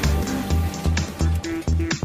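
Background music with a steady, fast bass beat.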